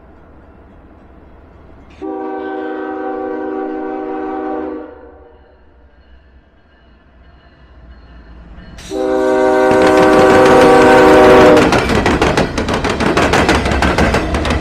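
Railroad locomotive's multi-chime air horn sounding two long blasts, about three seconds each and roughly seven seconds apart, as the train approaches. The second blast is joined by the loud rumble of the train passing, which carries on as rapid wheel clatter.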